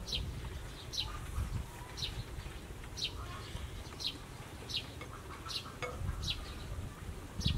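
Short, high chirps, each a quick falling note, repeated roughly once a second by a small animal calling, over a faint low background rumble.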